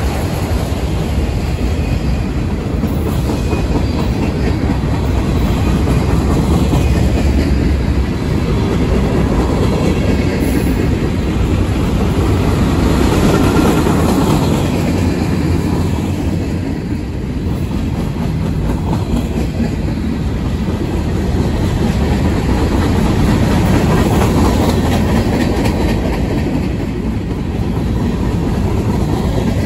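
A long mixed freight train's cars rolling past at close range: steady rumble and rattle of steel wheels on the rails, with clickety-clack over the rail joints, swelling and easing a little as the cars go by.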